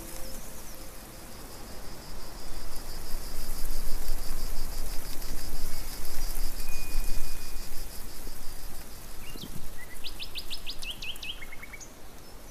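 Countryside ambience with birds: a steady hiss, a fast, even high trill through the first half, and a quick run of bird chirps a few seconds before the end.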